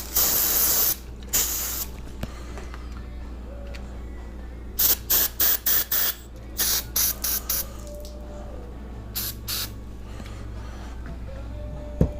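Aerosol can of brake cleaner spraying in hissing bursts, cleaning a disassembled brake master cylinder. Two longer blasts come first, then a quick run of about ten short squirts, then two more short ones. A sharp click comes near the end.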